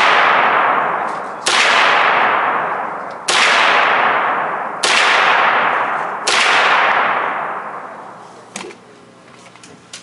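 Thureon Defense semi-automatic 9mm carbine fired in slow single shots, about a second and a half apart, five in all. Each shot rings out in a long echo of the indoor range. A couple of small clicks follow near the end.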